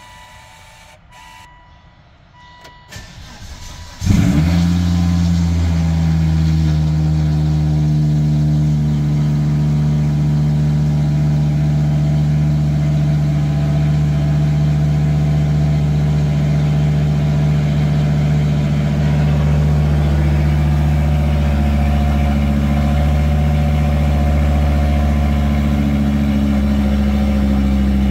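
Volvo S60 R's turbocharged 2.5-litre inline-five cold-starting through a straight-piped 3-inch exhaust with a race cat and no muffler: it cranks briefly and catches about four seconds in with a loud flare, then holds a steady fast cold idle that eases slightly lower later on. Before the start a few quiet warning chimes sound while the driver's door is open.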